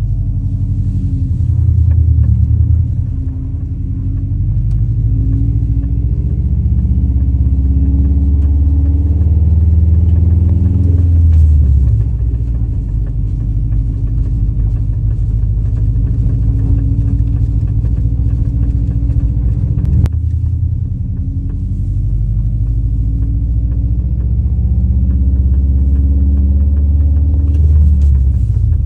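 Subaru driven slowly, a loud low rumble of the car in motion with a rapid scatter of light knocks from the front end, toward the driver's side front wheel. The owner first suspected a CV axle and now suspects the brake pads, since the knock stops when the brakes are applied. One sharp click about 20 seconds in.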